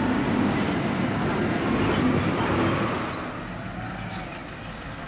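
Wheel loader's diesel engine working under load, louder for about the first three seconds and then easing off.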